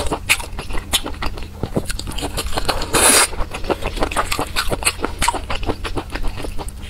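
Close-miked eating of chili-sauced skewered meat: chewing with many quick wet mouth clicks and smacks, and one short loud hiss about three seconds in.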